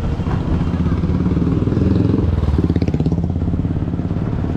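Motorcycle engine running close by with a steady, rapid throb, a little louder around the middle.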